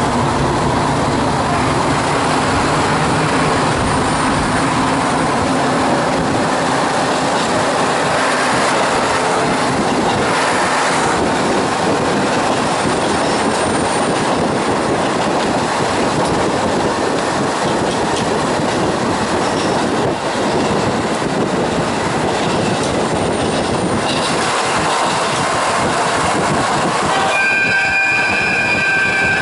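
Diesel railcar heard from inside the passenger car as it pulls away and gathers speed: steady engine and wheel-on-rail running noise. Near the end a high ringing tone sounds for about two seconds.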